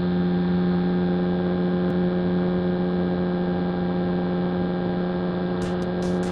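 Airplane engine running at a steady cruise setting, a constant droning hum picked up by a camera mounted on the airframe, with a few brief crackles near the end.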